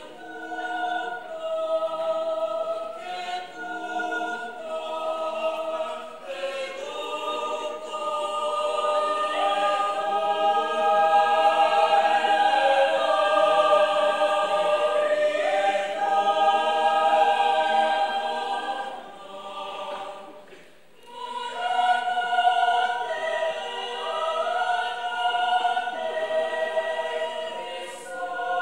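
Mixed-voice choir singing held chords in harmony, swelling to a full, loud passage in the middle, falling to a brief hush about twenty seconds in, then coming back in.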